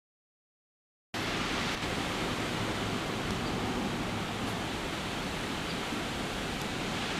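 Silence, then about a second in a steady rushing hiss starts abruptly and holds evenly.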